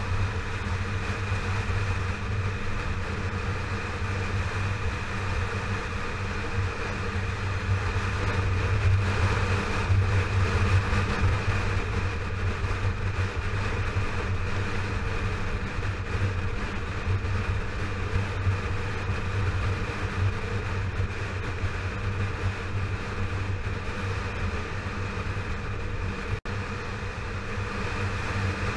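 Yamaha FZ6R's 600 cc inline-four engine running steadily while the motorcycle cruises, mixed with road and rushing-air noise. It swells a little about nine seconds in, then settles back.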